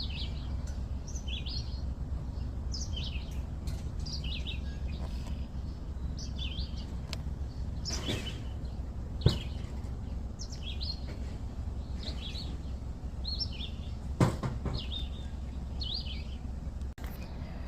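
Songbirds chirping in short high phrases repeated about once a second, over a steady low rumble, with two sharp knocks about nine and fourteen seconds in.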